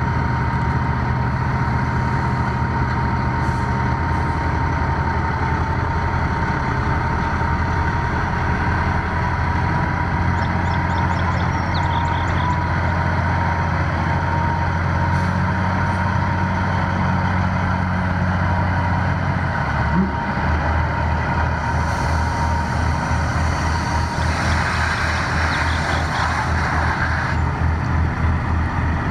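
Diesel engine of a loaded tractor-trailer log truck pulling slowly off a barge. About twenty seconds in there is a single knock and the engine's low note changes, and near the end there is a hiss lasting a few seconds.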